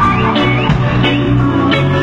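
Live band music: guitar and bass playing over a steady drum beat.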